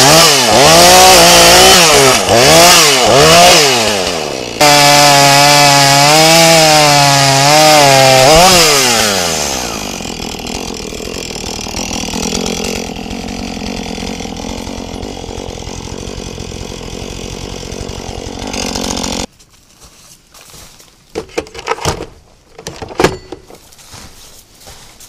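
Husqvarna petrol chainsaw cutting through a windfallen tree trunk, its revs rising and falling repeatedly as the chain bites. It is then held at full revs for a few seconds before the revs drop back and it idles. Near the end the saw goes quiet, leaving a few scattered knocks and clicks.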